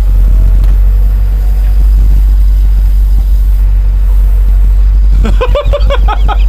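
Kobelco SK210 excavator's diesel engine running steadily under load, a loud low hum, while the machine swings a sled around. Near the end a high-pitched voice calls out over it.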